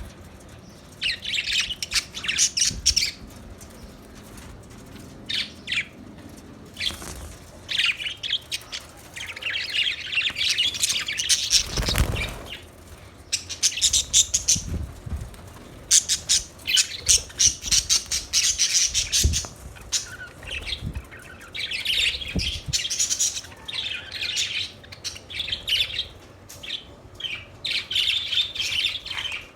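Budgerigars chirping and chattering in rapid, scratchy bursts of high-pitched calls, several birds overlapping, with a short dull thump about halfway through.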